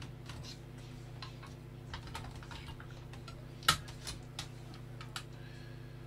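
Light clicks and taps of a hard drive being handled and fitted into a metal drive bracket, with one sharper knock a little past halfway, over a steady low hum.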